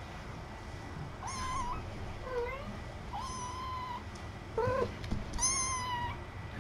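Kitten meowing: about five high-pitched meows spread through the few seconds, two of them held for nearly a second.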